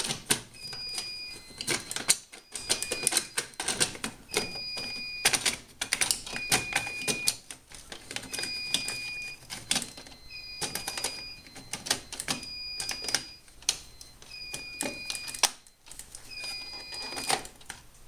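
Fire-Lite MS-9600UDLS fire alarm panel's trouble sounder beeping with a short high tone about every two seconds, signalling a trouble because a detector head was taken off its base. Over it, dense clicking and rattling from handling the detector head as it is fitted back on its base.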